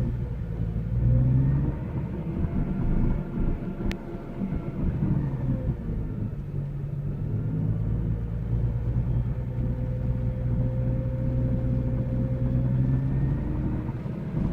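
Car engine and exhaust running with a rattling or deep ticking from the exhaust. The engine speed rises and falls, then holds steady, and there is one sharp click about four seconds in.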